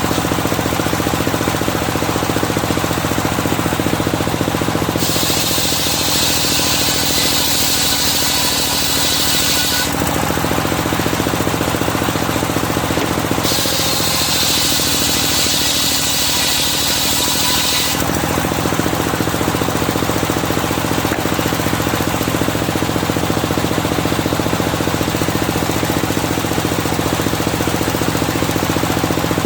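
Engine-driven circular sawmill running steadily, with twice a loud high rushing noise, from about five to ten seconds in and again from about thirteen to eighteen seconds in, as the blade cuts through a medang log.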